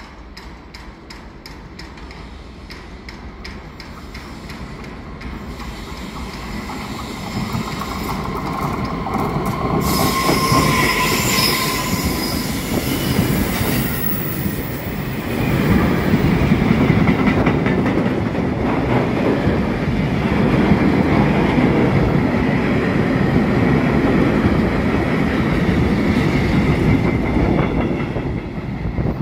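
Freight train hauled by an E494 electric locomotive approaching and passing, its rumble growing steadily louder. About ten seconds in, as the locomotive goes by on the curve, there is a brief high wheel squeal. After that come the steady, loud rumble and wheel noise of the tank wagons rolling past.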